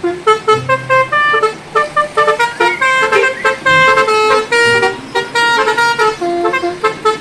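Bus telolet horn playing a rapid tootling melody of short notes stepping up and down in pitch.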